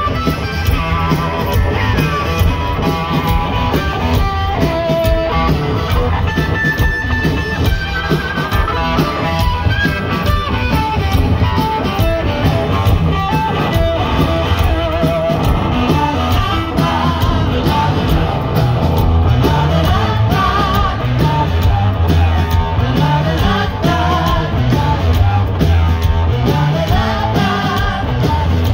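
A live blues-rock band playing loud: electric guitar lines over a steady drum-kit beat and bass, heard through a big outdoor PA from the crowd.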